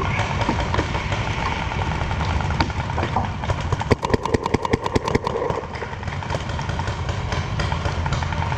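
A paintball marker firing a rapid string of about a dozen shots, about ten a second, from about three and a half seconds in to just past five seconds, with a few scattered single shots around it, over a steady low rumble.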